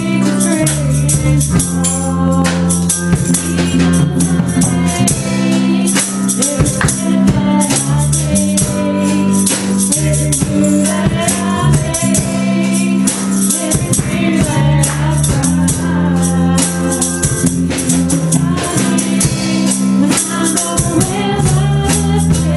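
Live gospel worship band: a woman singing into a microphone, backed by a drum kit with frequent cymbal hits, a bass line and keyboard.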